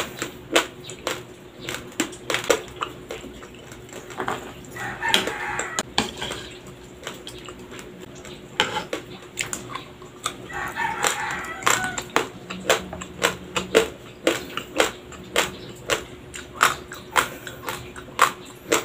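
Raw white Dinurado rice crunching between the teeth: dry grains cracking in sharp, irregular crunches, two or three a second.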